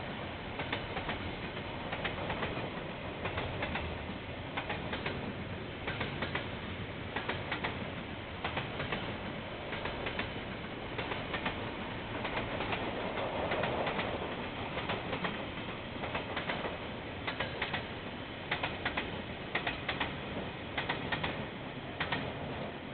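Train rolling past, a steady rumble with its wheels clicking sharply over the rail joints, the clicks coming irregularly and often in pairs.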